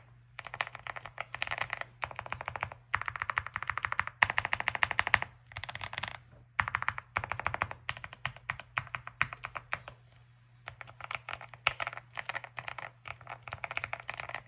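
Typing on a Leobog Hi75 mechanical keyboard with Gateron Milky Yellow Pro linear switches: bursts of rapid keystrokes with brief pauses between them, the longest pause about two-thirds of the way through. A faint steady low hum runs underneath.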